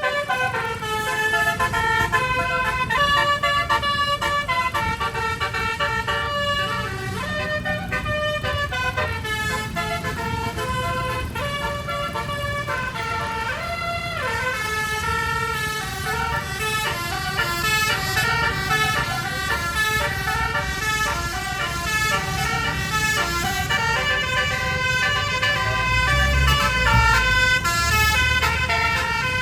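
Bus telolet horn, a multi-trumpet air horn, playing a melody of quickly changing notes. A low engine rumble swells near the end.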